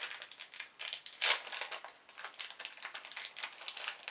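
Crinkling and small clicks of a small packet of jewellery jump rings being handled, with one louder crinkle about a second in.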